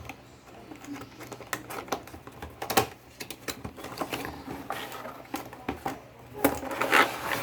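A product box being opened and its packaging handled: a string of irregular clicks, taps and light rustles, with a few louder knocks about three seconds in and near the end.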